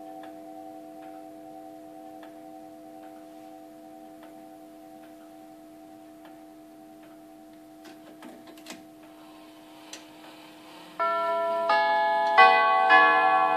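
Herschede nine-tube grandfather clock ticking steadily under the fading ring of tubular chime bells, with a few clicks as its minute hand is turned by hand. About eleven seconds in, as the minute hand reaches the hour, the tubular bells begin a new chime, a note struck roughly every half second.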